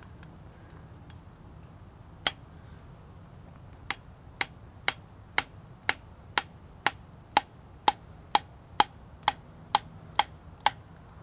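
Metal-on-metal tapping: one strike, then a steady run of about fifteen strikes at roughly two a second, each with a short ring. It is tapping at a GY6 scooter engine's piston to drive out a wrist pin that is stuck hard.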